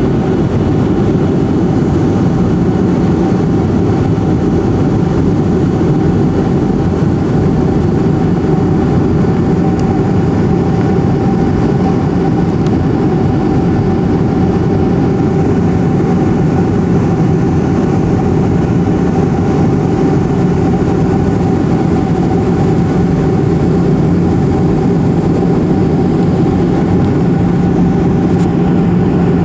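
Airplane cabin noise in flight: the engines and rushing air make a loud, steady drone with a constant hum through it.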